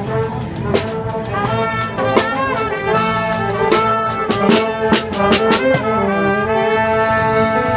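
A street brass band playing live up close: trumpets, trombones and saxophones over a sousaphone bass, with snare drum strokes that are busier in the first half.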